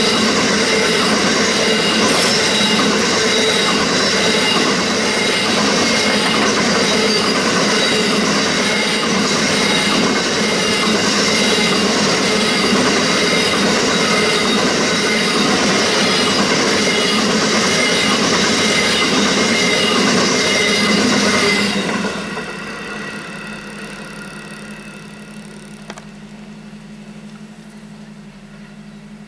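A long grain train's hopper wagons rolling past at a level crossing, with high-pitched wheel squeal and a regular clickety-clack of the wheels. The last wagon passes about 22 seconds in and the sound falls away quickly, leaving a low steady hum.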